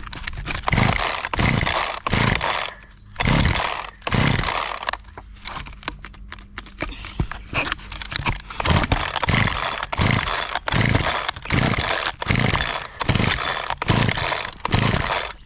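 Zitto two-stroke chainsaw being pull-started over and over, the recoil starter rope yanked in quick runs of about two pulls a second with a lull of a few seconds midway. The engine cranks but does not catch: it is "not popping off" even primed and on choke after new fuel lines were fitted.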